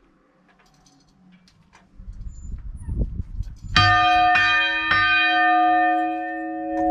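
Church bell in the tower, rung close up: a loud first stroke a little over halfway through, further strokes about half a second apart, and a long steady ring between them. Before it come low knocks and rumbling.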